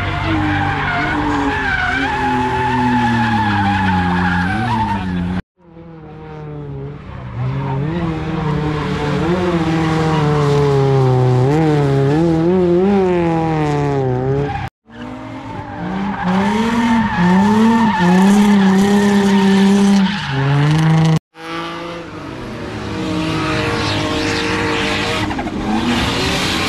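Drift cars sliding with their tyres squealing, engines revving up and down at high rpm. The sound breaks off abruptly three times as one run gives way to the next.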